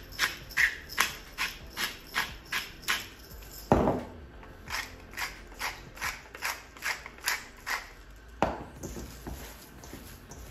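A salt grinder twisted in quick ratcheting rasps, about three a second, then set down with a knock about four seconds in. A pepper mill is then ground the same way and set down with a knock about eight and a half seconds in, followed by the quieter sound of hands starting to knead minced meat.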